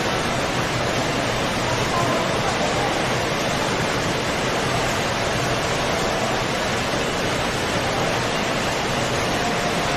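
Heavy tropical rain pouring down, a steady dense hiss.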